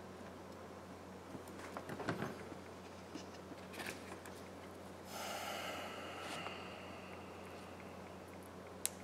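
Small clicks and handling noises of phone-repair parts being picked up and fiddled with on a workbench. A longer hiss comes about five seconds in and a single sharp click near the end, over a steady low electrical hum.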